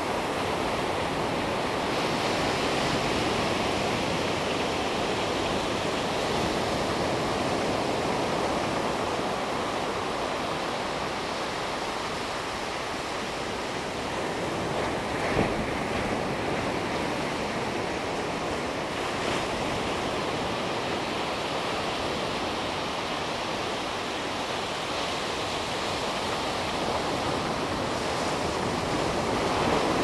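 Ocean surf breaking on a sandy beach and washing up the shore: a steady rushing wash that swells and eases with each wave, rising again near the end as a wave breaks. One short click about halfway through.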